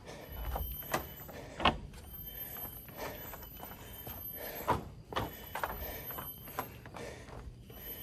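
Footsteps of a hiker walking on a forest trail: irregular thuds and scuffs about once or twice a second, over a steady high-pitched whine in the background.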